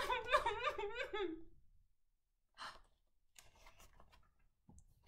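A woman's mock crying, a wavering whimpering sob for about a second and a half, acting out the princess crying. Then a short breath and a few faint rustles and a click as the big picture book is handled.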